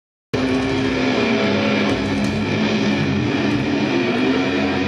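Live thrash metal band playing loud with heavily distorted electric guitars and drums, cutting in abruptly just after the start.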